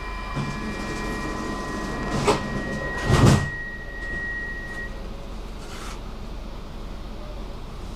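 Stockholm metro train interior: a steady electric whine from the train fades out, with a low rumble underneath. Two short loud noises come about two and three seconds in, the second the louder.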